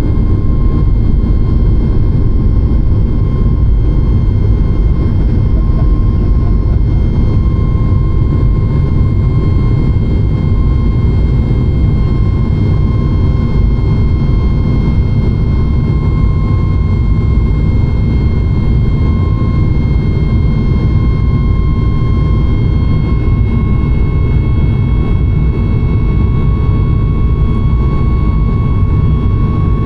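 Boeing 737 MAX 9's CFM LEAP-1B jet engines heard from inside the cabin during takeoff: a loud, steady low rumble with a high engine whine that steps up slightly in pitch a little over twenty seconds in.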